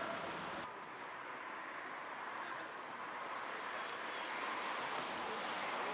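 Street ambience: a steady wash of distant traffic noise, its low rumble dropping away about a second in. A brief click about four seconds in.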